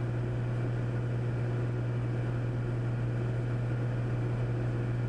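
Steady drone of a Cessna 400's piston engine and propeller in cruise on the approach, a constant low hum under even noise, heard through the cockpit audio.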